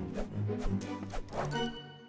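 Orchestral film score with quick, sharp accented hits, dropping away near the end.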